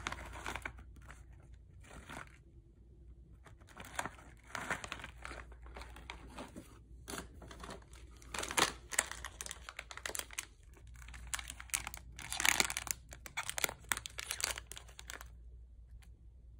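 Crinkly plastic snack wrappers crackling and rustling as they are handled, in irregular bursts that are loudest a little past halfway and again about three-quarters through. The crackling stops about a second before the end.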